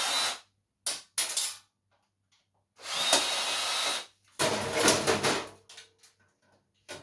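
Cordless drill-driver running in two short spells of about a second each, backing out screws. Between the spells come a few clicks, and then a clatter of parts being handled.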